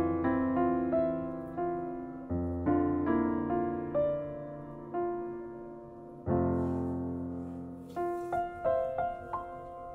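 Background piano music: a slow melody of single notes over low notes that come in every few seconds.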